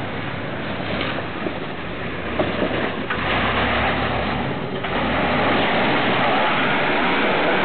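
Jeep Wrangler TJ's engine running as it crawls up over rocks, getting louder about five seconds in.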